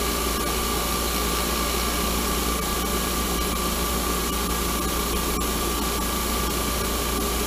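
Bench grinder running free with nothing against the wheel: a steady motor hum and noise with a thin, constant whine.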